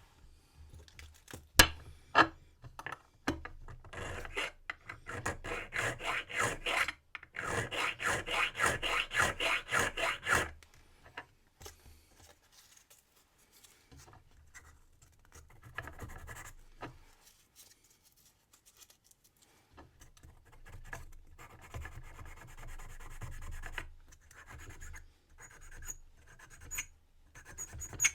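Hand file rasping on a brass key blank in runs of rapid back-and-forth strokes, filing down the marks left by the lock's wafers while impressioning a key. The loudest run is about seven to ten seconds in, with quieter runs later and a sharp click near the start.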